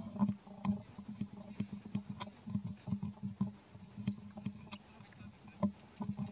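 Quick, irregular wet mouth smacks and clicks, about three to four a second, from a mother monkey licking and mouthing her newborn's head.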